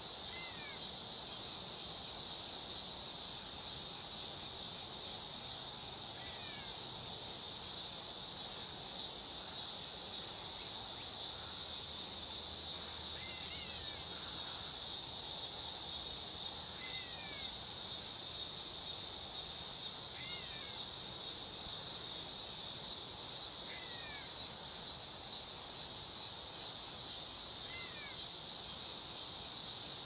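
Dog-day cicada (Neotibicen canicularis) singing: a steady, high-pitched, unbroken buzzing drone that swells slightly in the middle.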